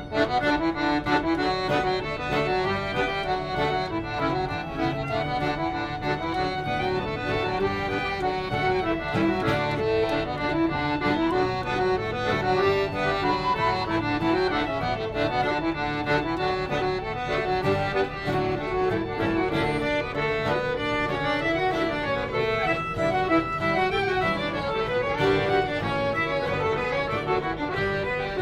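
Live instrumental folk tune played on accordion, strummed acoustic guitar and a small wooden whistle.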